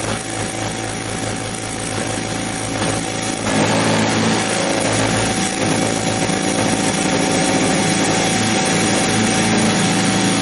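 Harbor Freight 44991 mini mill's spindle motor running with an end mill cutting into a metal workpiece on a rotary table, a fairly heavy cut. The cutting noise gets louder and fuller about three and a half seconds in and stays that way.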